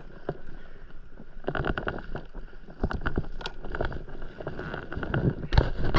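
Irregular clicks and knocks of a spinning rod and reel being handled and laid down on an inflatable paddleboard, over a low hiss of wind and water. The knocks come thicker and louder near the end.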